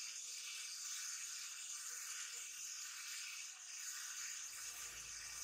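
Quiet room tone: a steady high hiss with no distinct event.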